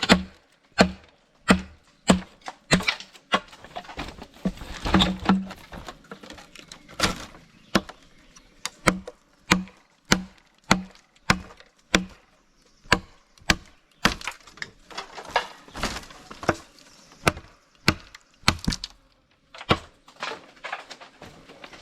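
Wood being chopped: sharp, evenly paced strokes about one and a half a second, each with a dull thud, broken by a few short pauses.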